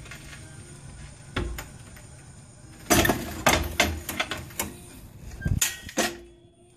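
Sharp metallic knocks and clicks as a floor jack lets the front lower control arm down and the coil spring's tension is released. One knock comes about a second and a half in, and a quick run of clanks and clicks follows from about three seconds to six.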